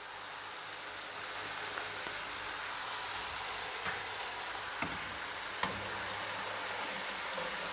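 Tomato paste and ketchup sizzling steadily in hot oil in a karahi as the sauce cooks down, with a few light clicks partway through.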